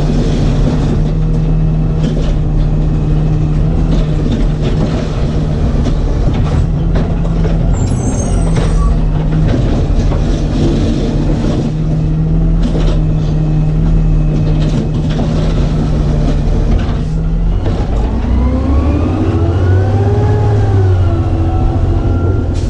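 Diesel engine of an automated side-loader garbage truck running steadily, with scattered knocks and clanks. Near the end the engine revs up and back down.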